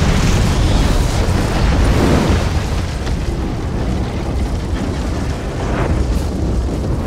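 Drawn-out explosion sound effect: one long, deep rumble with hiss on top. It swells slightly about two seconds in and again near six seconds.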